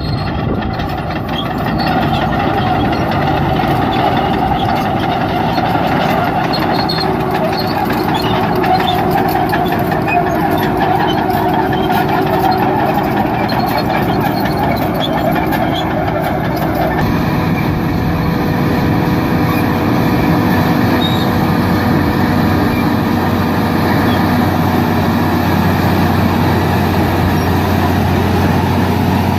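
Heavy diesel engine of a bulldozer running steadily under load, with the sound changing abruptly about seventeen seconds in.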